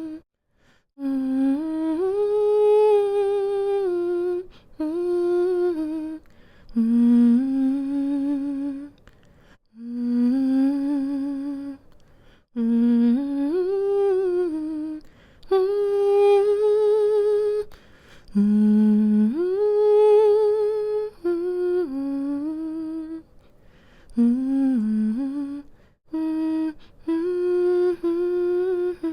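A woman humming a slow, soothing lullaby melody with her mouth closed, in phrases of a few seconds that hold and glide between notes, with short pauses for breath between phrases.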